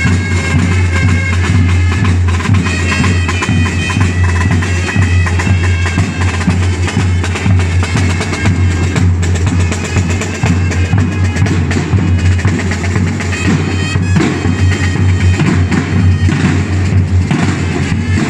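Drum and bugle corps playing: bass drums and tenor drums beat a busy steady rhythm under bugles sounding held notes, which are clearest in the first few seconds.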